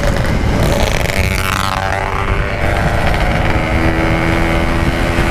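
Yamaha RX-King 135cc two-stroke single-cylinder motorcycle running at road speed, with heavy wind noise on the microphone. Its engine note shifts in pitch between about one and two and a half seconds in, then holds steady.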